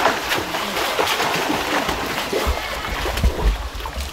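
Splashing from a swimmer's front-crawl arm strokes and kicks in a swimming pool, with some low thumps in the second half.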